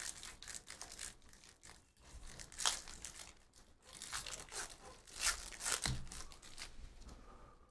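Foil wrapper of a Panini Prizm trading-card pack being torn open and crinkled by hand. Crackling rustle throughout, with sharp tearing crackles a little under three seconds in and twice more just after five seconds.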